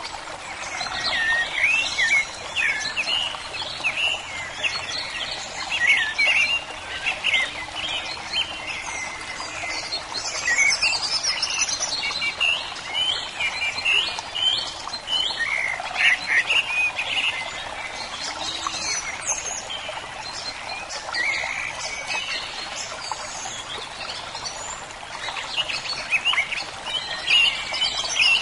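Several birds singing and chirping outdoors: many short, overlapping chirps and whistles, some rising and some falling, over a steady background hiss.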